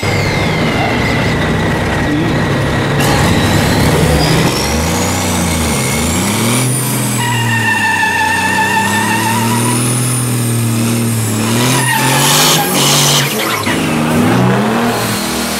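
Diesel dump truck engine revving up and down hard while its rear tires spin in a burnout, with a high tire squeal from about seven seconds in until about eleven seconds.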